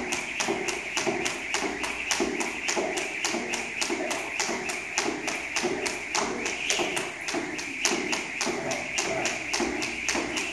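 Jump rope slapping a rubber gym floor in a fast, even rhythm, about four ticks a second.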